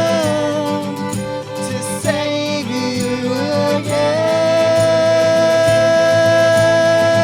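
Instrumental passage of a soft-rock song, led by a violin. The violin holds long notes, sliding between pitches in the first half, then sustains one note for about three seconds before sliding down near the end.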